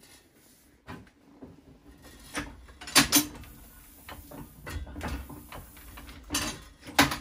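C&P treadle platen press being run for a first impression: loud mechanical clanks and knocks as the platen and roller carriage move, loudest about three seconds in and again near the end, over a low rumble of the flywheel turning.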